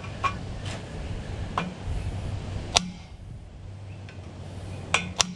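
Hammer blows on a flat blade wedged into the slip joint of a steel 4-into-1 extractor collector, striking to crack the tack weld that holds the pipe in. About six sharp metallic hits spaced unevenly, the loudest about three seconds in and two quick ones near the end.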